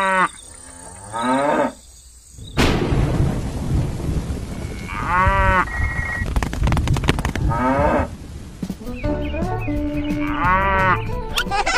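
Cows mooing several times, long calls that rise and fall in pitch, over a steady rain hiss that starts suddenly a couple of seconds in. A quick run of sharp cracks sounds near the middle.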